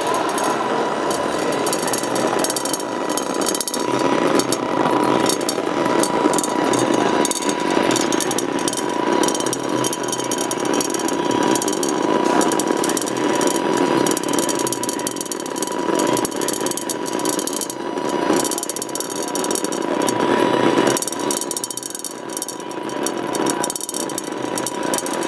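Electronic oscillator sound: a steady high tone held under dense crackling, rattling noise with many sharp clicks.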